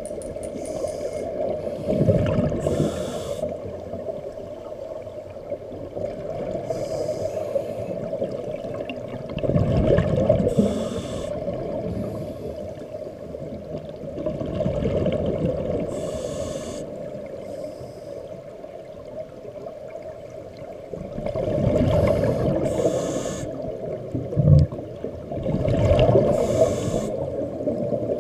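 Scuba breathing through a regulator, heard muffled through an underwater camera housing: a hiss on each inhalation and a bubbly gurgle of exhaled bubbles, repeating about every five seconds. A short, sharp thump comes about three-quarters of the way through.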